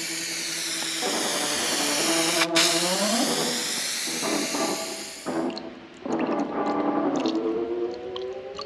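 Hiss of a Raptor aerosol spray can spraying paint, with sweeping, shifting bands in the hiss, and background music with steady tones and a gliding note under it. The spray hiss cuts off about five seconds in.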